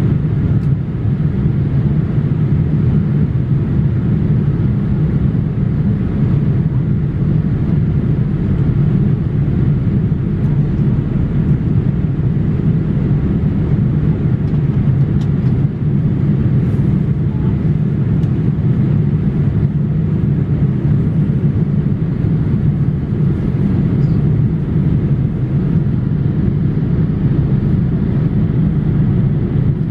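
Steady cabin noise inside a Boeing 787-8 in flight, heard from a seat over the wing: an even, deep rumble of its Rolls-Royce Trent 1000 engines and the airflow over the fuselage.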